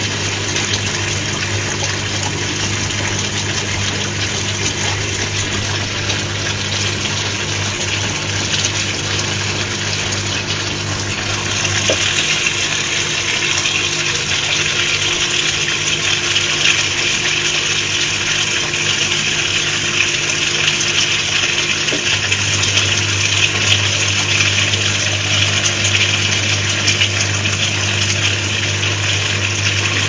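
Whirlpool AWG 371 front-loading washing machine on its rinse cycle: the drum motor hums steadily as it tumbles the wet laundry. About twelve seconds in the motor stops while a louder hissing rush of water pours into the drum, and about ten seconds later the motor starts tumbling again as the water keeps running.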